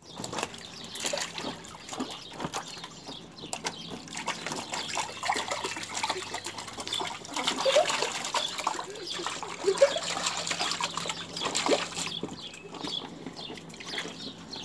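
Shallow water in a small inflatable paddling pool splashing and trickling as a puppy paddles and moves about in it, with children's feet stirring the water. A few short squeaky calls sound over it.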